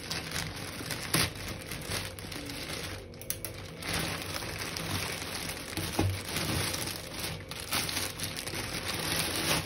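Plastic courier mailer crinkling and rustling as it is cut open with scissors and pulled apart, then a bag in clear plastic wrap crinkling as it is drawn out. A couple of sharp clicks stand out, about a second in and around six seconds in.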